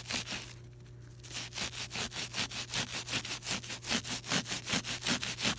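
A wadded paper towel scrubbed rapidly back and forth on a freshly sprayed looped carpet, about five rubbing strokes a second, working a slime stain out of the pile. The scrubbing pauses briefly about half a second in and then resumes steadily.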